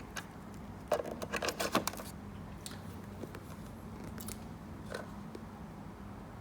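Plastic plug and plug-in power meter being handled and pushed into an outlet: a quick run of clicks and rattles about a second in, then a few scattered clicks. A steady low hum runs underneath.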